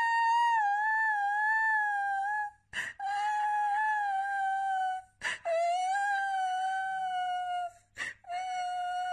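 Pomeranian puppy howling: four long drawn-out howls in a row, each a couple of seconds long and sagging slightly in pitch, with a quick breath between them.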